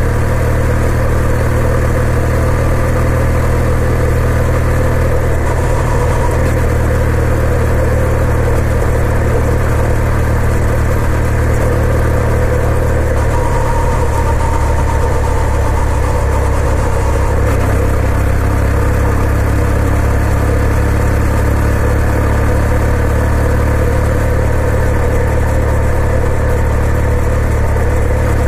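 2020 Kawasaki W800's air-cooled parallel-twin engine running with a steady low drone, its tone shifting slightly around the middle.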